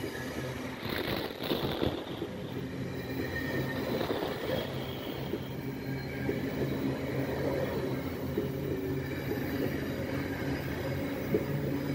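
Passenger coaches of a Vitória-Minas Railway (EFVM) passenger train rolling past close by: a steady rumble of steel wheels on rail, with frequent short clacks from the wheels and bogies.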